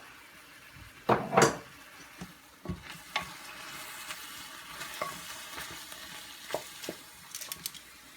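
Shrimp, garlic and shallots sizzling in olive oil in a pan while being stirred, with the clicks and scrapes of a utensil against the pan. A brief loud rasp about a second in.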